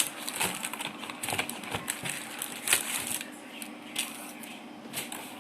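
Plastic packaging film crinkling and crackling as it is unwrapped from a new keyboard, in irregular bursts of sharp crackles, busiest in the first three seconds, with single crackles about four and five seconds in.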